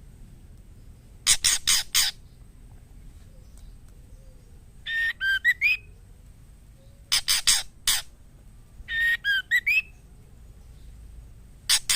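Female white-rumped shama calling to a male in breeding condition: short bursts of three or four harsh rasping notes alternating with brief whistled phrases that slide up and down, each burst a few seconds apart.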